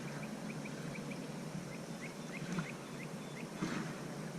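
A small bird chirping: a run of short, high, slightly rising chirps, about three a second, with a brief pause partway through, over steady background noise.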